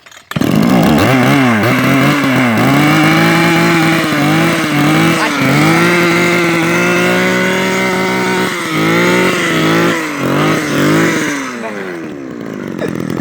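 A small engine starts abruptly and runs loudly, its revs rising and falling several times, with dips about two and a half, five, eight and a half and ten seconds in. The revs sink and the sound weakens near the end.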